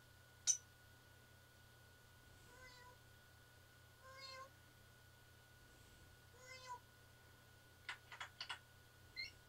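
A pet parrot makes three faint, short meow-like calls about every two seconds. There is a sharp click about half a second in and a few quick clicks near the end.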